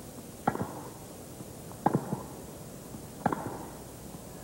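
Tennis ball struck by racquets in a rally on grass, three crisp hits about a second and a half apart, each followed by a softer tick.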